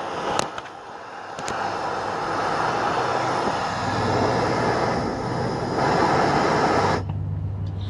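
Handheld propane torch flame running with a steady roaring hiss while heating a U-joint cap, a few metal clicks in the first second or so; the flame cuts off suddenly near the end as the torch is shut off.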